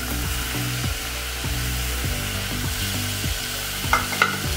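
Spice masala sizzling in a steel pressure cooker as ground tuber is scraped in from a bowl, under background music. Two sharp knocks near the end.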